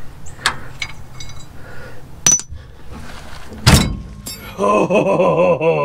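Wrench clinking and knocking against a seized steel shock-absorber mounting bolt, with one loud metal clank about two-thirds of the way in. A man's long strained groan of effort follows near the end.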